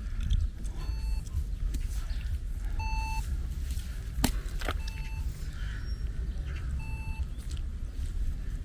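Pedestrian crossing signal beeping slowly, one short tone about every two seconds, the waiting signal while the light is red. Under it runs a steady low rumble, and a sharp click sounds about four seconds in.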